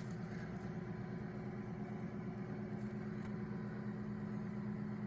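Steady low machine hum with a constant drone, unchanging throughout.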